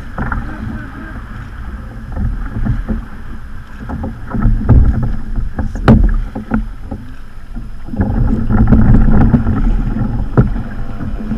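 Water sloshing and splashing against the hull of a plastic Hobie fishing kayak, with rumbling thuds. There is a sharp knock about six seconds in, and the splashing grows louder again for a couple of seconds near the end.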